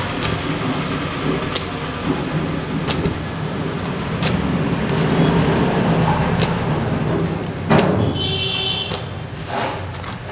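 Papad roasting over an open gas-stove burner: the burner flame makes a steady noise, and a few sharp clicks come every second or two.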